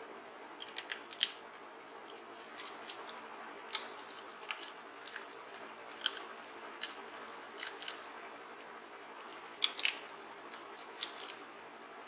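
Small screwdriver backing out the screws that hold the metal mounting bracket on a laptop hard disk drive, with the drive handled in the hand: light, irregular metal clicks and ticks, a few louder ones.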